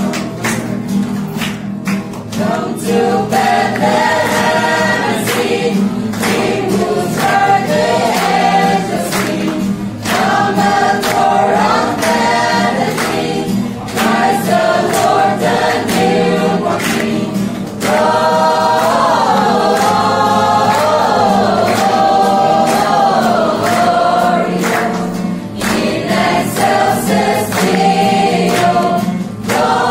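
A small group of young voices, mostly women, singing a Christmas song together, with an acoustic guitar strummed along underneath.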